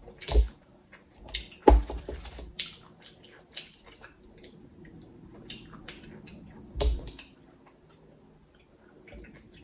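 Close-miked eating sounds: chewing of chewy clam meat with many small wet mouth clicks and smacks, and three louder knocks with a low thump, near the start, just under two seconds in, and about seven seconds in.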